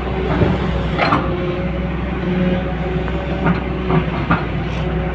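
Heavy diesel engine running steadily, with several short sharp metallic clanks over its drone.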